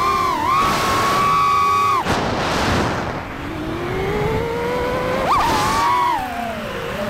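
FPV quadcopter's brushless motors whining, the pitch following the throttle. The whine holds high for about two seconds and cuts off suddenly, then climbs slowly, jumps sharply about five seconds in, and falls away before rising again at the end.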